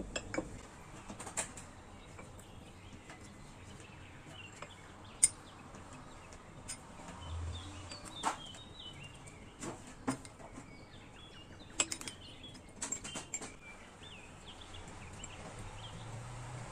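A metal teaspoon clinking against a glass bowl and glass jars as dill seeds are spooned into jars of cucumbers: a dozen or so sharp, scattered clinks. Faint high chirps sound in the background through the middle.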